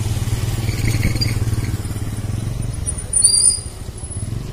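Scooter running steadily with a low rumble along a rain-wet road, with a short high-pitched squeal about three seconds in.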